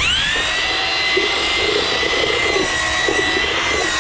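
Electric drill with a mixing paddle stirring ready-mix concrete. The motor spins up with a quick rising whine right at the start, then runs at a steady high speed.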